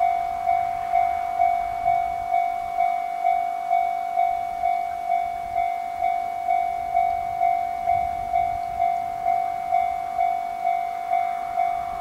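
Japanese railway level-crossing alarm ringing its electronic bell at an even rate of a little over two dings a second. The faint rumble of the approaching Train Suite Shiki-shima runs underneath.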